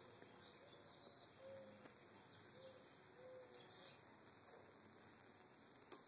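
Near silence with faint bird calls: a few short, soft, low coos in the middle and scattered faint high chirps, then a single brief click near the end.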